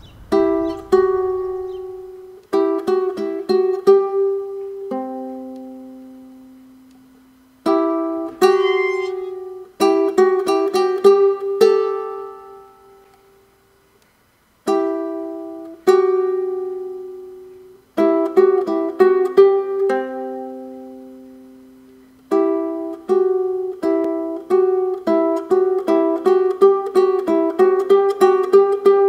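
Solo ukulele playing plucked chords and single notes in slow phrases, each left to ring and fade, with short pauses between them; the playing turns into steadier, quicker strumming near the end.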